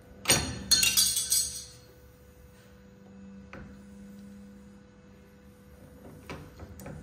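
Knockoff Beverly throatless shear cutting sheet metal: a quick run of sharp metallic snips and clinks under a second in, lasting about a second and a half, then a few faint clicks as the piece is turned in the jaws.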